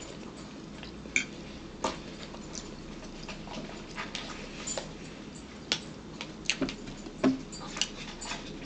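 Scattered short clicks and small noises of people eating at a table: a fork tapping on a plate and bowl, with chewing in between.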